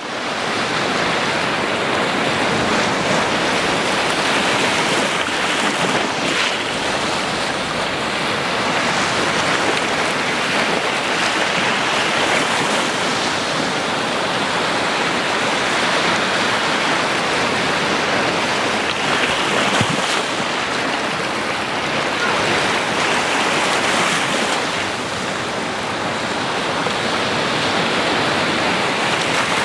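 Ocean surf: a steady wash of waves that swells and eases gently in loudness.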